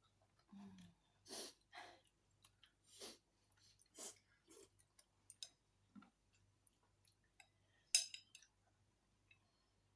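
Close-miked eating sounds: a series of short, soft chewing and mouth noises, with one sharper click about eight seconds in.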